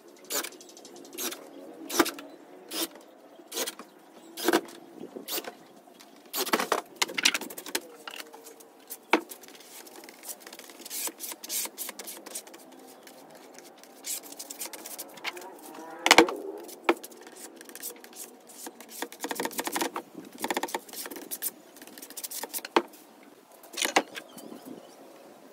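Contact adhesive being applied for HPL laminating: a run of short, irregular hissing and scraping strokes from spraying and brushing the glue, with a sharp knock about 16 seconds in.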